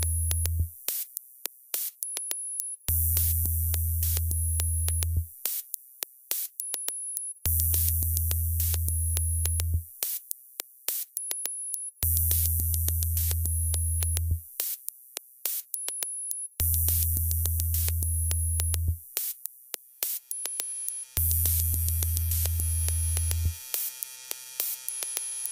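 Minimal glitch electronic music: a deep bass tone sounds for about two seconds every four and a half seconds, with scattered sharp clicks and short high beeps in between. About twenty seconds in, a cluster of steady metallic tones joins.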